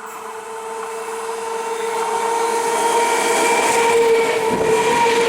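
Indian Railways ICF EMU local train approaching, its sound growing steadily louder: a rising rush of running noise with a steady whine held under it.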